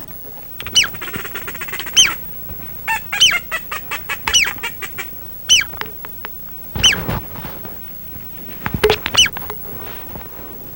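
Duck quacking, in short groups of arching calls with a fast run of short notes in the middle, as heard from a duck blind.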